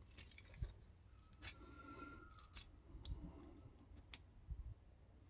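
Near silence with a few faint, scattered small clicks: tweezers and tiny driver pins and springs being picked out of a padlock's pin chambers.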